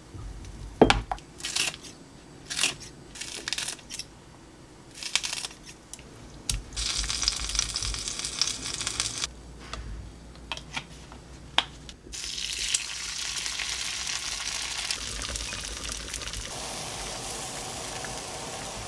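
Spoon and utensil clinks and knocks against a pot, then slices of tofu sizzling steadily as they fry in oil in a frying pan from about two-thirds of the way in.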